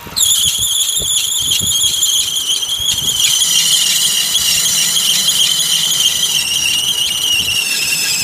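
A loud, steady, high-pitched squeal from a car's engine bay over the idling engine. It starts suddenly just after the air conditioning is switched on, which puts it in the A/C compressor's drive, and it sags slightly in pitch as it goes.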